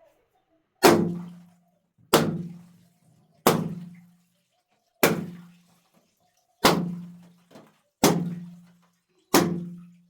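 Water-filled balloons bursting one after another: seven sharp bangs, each followed by a short, low, ringing thud that dies away within about a second.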